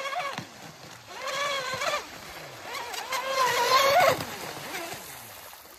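RC speedboat's brushless electric motor, a 4074 2250 kV on 6S, whining in two main bursts, its pitch rising and falling with the throttle.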